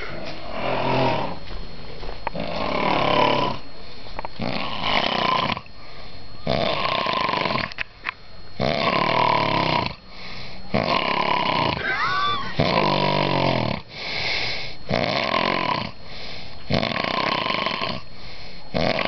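A man snoring heavily in deep sleep: a string of harsh, noisy breaths in and out, roughly one a second with short breaks. About twelve seconds in, one snore turns into a pitched, wavering sound.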